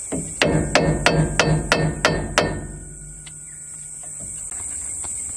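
Hand hammer striking steel at the Landcruiser's rear diff pinion nut, trying to loosen it: about seven sharp metallic blows, roughly three a second, each leaving a low ring, then one lighter tap.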